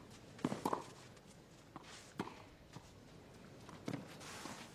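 Tennis rally: a series of sharp ball strikes from the rackets, roughly one to one and a half seconds apart, with softer taps between them.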